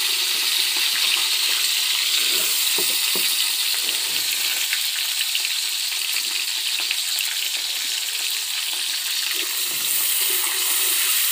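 Cashews, raisins and bay leaves sizzling in hot oil in a metal karahi: a steady hiss with fine crackles.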